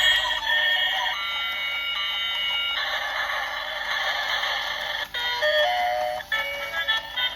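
Tinny electronic melody of beeping tones from a battery-powered toy's small speaker, the notes changing pitch about once a second.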